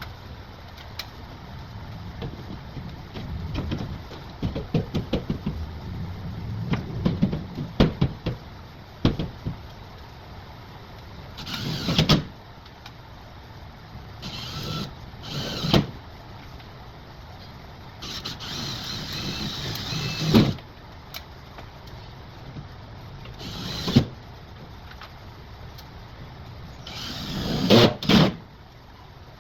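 Drywall hanging work: a quick run of knocks and taps, then about five short whirring bursts that each build up and end abruptly.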